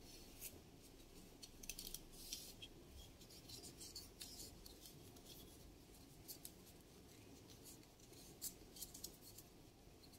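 Faint, scattered scratches and rustles of a white thread being wound and pulled tight around a cinnamon stick by hand.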